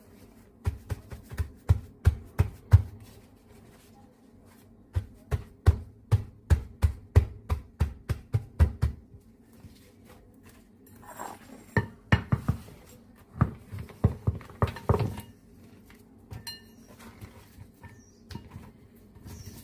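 Kitchen clatter: two runs of sharp knocks, about three or four a second, then softer, scattered clinks and knocks of dishes and utensils.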